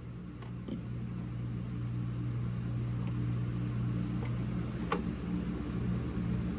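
A vinyl 45 RPM single played on a turntable with no music left in the groove: a steady low electrical hum under faint hiss, with a few soft surface clicks. The hum grows a little louder over the first couple of seconds.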